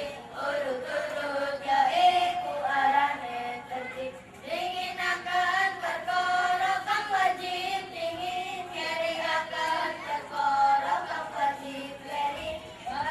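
A group of young children singing together in unison, with long held notes that slide between pitches.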